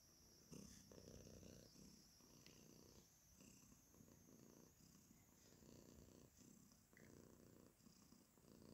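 Domestic cat purring softly, the low purr swelling and fading in pulses about a second long with each breath.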